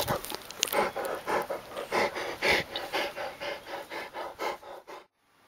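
A dog panting in quick, even breaths, about three a second, which cut off suddenly about five seconds in.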